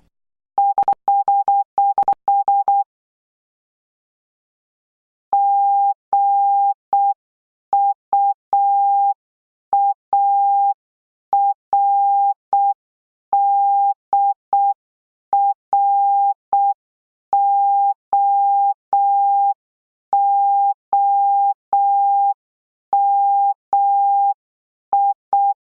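Morse code practice tones: a single steady electronic beep keyed on and off in short dots and longer dashes. A quick run of code comes first, then about two seconds of silence, then a longer, slower-spaced run of dots and dashes.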